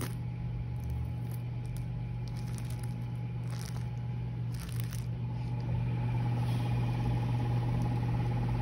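Steady low hum with two brief rustles of handled packaging, about three and a half and four and a half seconds in.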